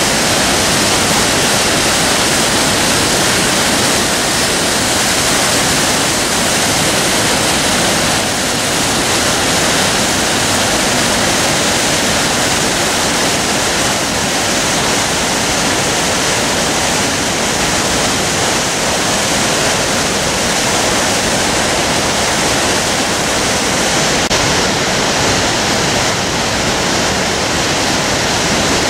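Waterfall and whitewater rapids pouring through a narrow rock gorge: a loud, steady rush of water that holds even throughout.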